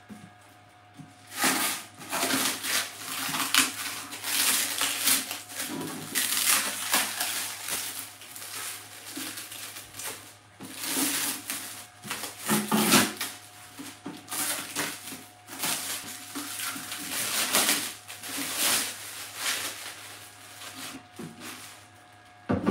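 Clear plastic bag crinkling and rustling in irregular bursts as it is pulled off a resin 3D printer's red acrylic UV cover.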